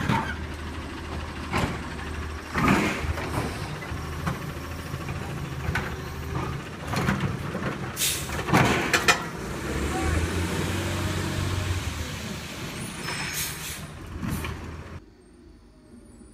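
Diesel engine of an automated side-loader garbage truck running steadily, with several short hisses and clunks from its air brakes and lifting arm as it picks up and empties a curbside cart. About a second before the end the sound cuts to much quieter background.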